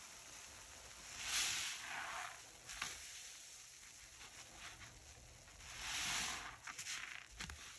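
A wet kitchen sponge caked with cleaning powder squished in the hand in soapy water, with two louder squeezes, one about a second in and one around six seconds, and a few small clicks between them.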